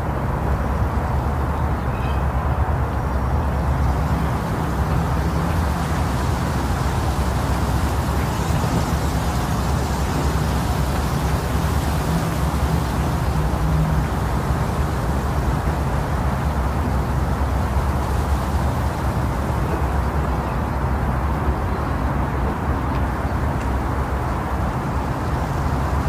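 Wind blowing as a steady, deep rush of noise, growing hissier for a stretch in the middle.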